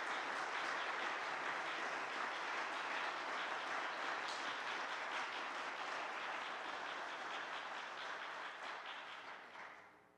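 Audience applauding, a dense steady clapping that dies away over the last two seconds.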